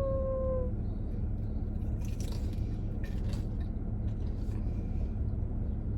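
Chewing a fried mozzarella-stuffed Korean corn dog, with a few soft crunches and wet bites. A hummed "mmm" trails off in the first second, over a steady low hum inside the car.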